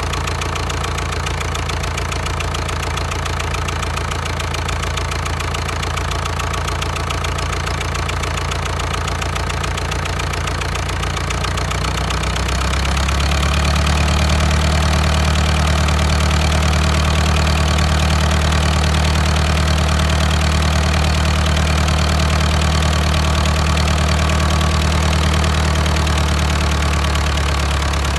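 Diesel engine running steadily, with a knocking engine note. About halfway through it gets louder and its low note shifts, then holds steady again.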